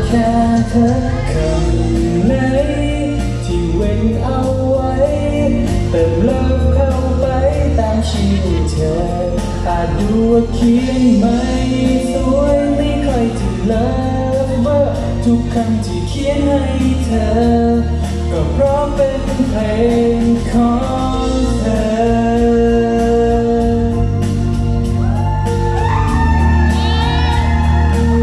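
A man singing a song live into a handheld microphone over instrumental backing music.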